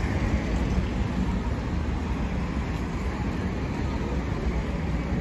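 Steady street noise of road traffic, a low rumble running throughout.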